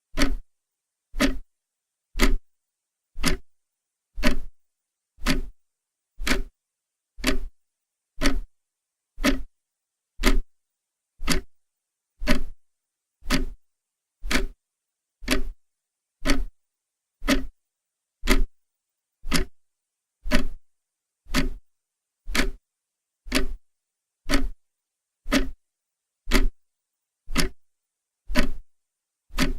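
Clock ticking, one sharp, even tick every second.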